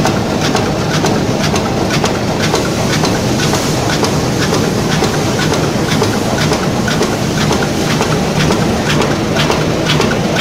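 An industrial machine running with a steady clatter: many irregular clicks over a constant low hum.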